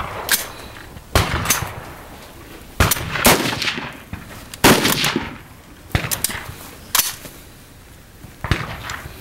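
Rifle shots from a highpower match firing line: about eight sharp reports at uneven intervals, each trailing off in a short echo.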